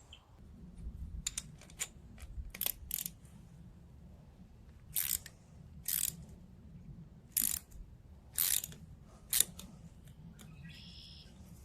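Hand tools working on a small engine's carburetor: a cluster of sharp metallic clicks, then five short rasping strokes about a second apart.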